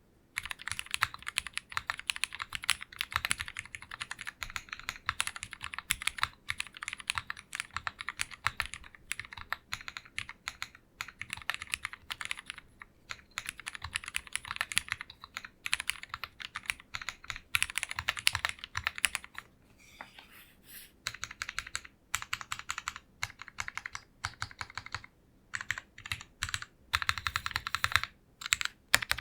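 Typing on an Owlab Mr. Suit TKL mechanical keyboard with lubed Cherry MX Black Hyperglide linear switches, a PC plate and PBT Cherry-profile keycaps: a continuous run of rapid key strokes, with a short lull about twenty seconds in.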